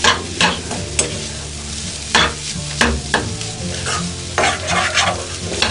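A spatula stirring and scraping a dry, crumbly egg and ivy gourd fry in a non-stick frying pan, with a light sizzle underneath. There is an irregular scrape every half second to a second.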